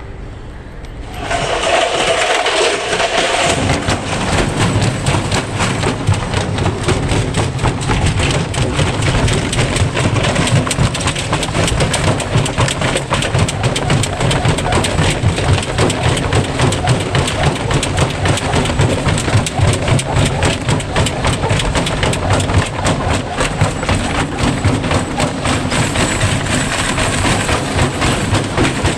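Electrolux washing machine running hard after it starts up about a second in. Its drum rumbles with dense, rapid knocking and rattling as the machine shakes itself apart.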